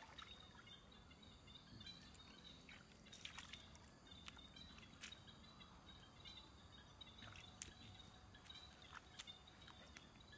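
Faint, scattered splashes and drips of shallow stream water as snails are picked off the muddy bed by hand, a few sharper ones standing out over a low, quiet background.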